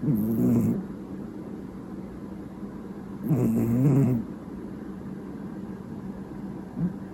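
House cat snoring loudly, like an old man: two long snores about three seconds apart, then a fainter one near the end.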